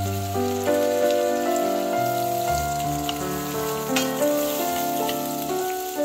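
Slow background music of held notes over the sizzle of sliced onions frying in oil and butter in a pan, with a few sharp pops.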